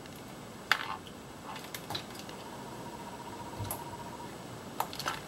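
Scattered light clicks and knocks of a test-lead clip and handheld multimeter being unhooked and lifted from the engine, with one duller thump midway and a faint steady high tone underneath.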